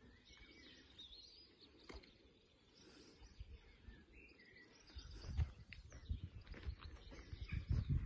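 Faint birdsong, with a single sharp click about two seconds in and irregular low rumbling thuds from about five seconds on that grow louder near the end.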